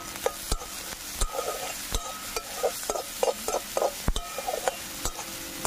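Chopped onion frying in mustard oil in a metal kadai, sizzling steadily while a flat metal spatula stirs it, knocking sharply on the pan a few times and scraping the bottom in a quick run of short strokes in the middle.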